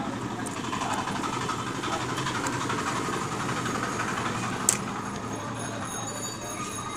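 Steady background rumble of traffic and engines, with a single sharp click about two-thirds of the way through.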